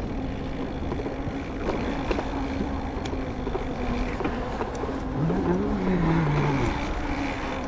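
Mountain bike's knobby tyres humming steadily on wet pavement, with rushing wind noise while riding. About five seconds in, a lower pitched sound rises and then falls for about a second and a half, the loudest moment.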